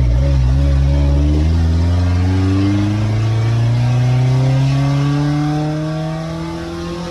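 1997 Nissan's engine accelerating steadily through one gear, its pitch rising slowly, heard from inside the cab with road and wind noise underneath.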